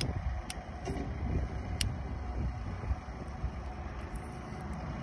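Wind rumbling on the microphone, with a few small, sharp metallic clicks in the first two seconds as a cap and ball revolver is being capped: percussion caps pressed onto the cylinder's nipples and the cylinder turned.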